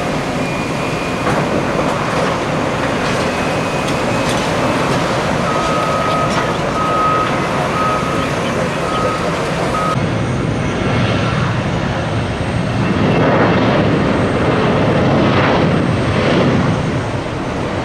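Bulldozers and other heavy construction machinery running, with a reversing alarm beeping about once a second for several seconds midway. Near the end the machine noise swells louder for a few seconds.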